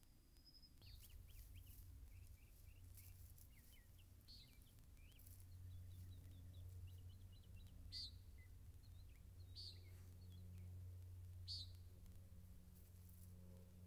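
Faint birdsong: quick series of small chirps, then short sharp calls repeated every couple of seconds, over a steady low rumble.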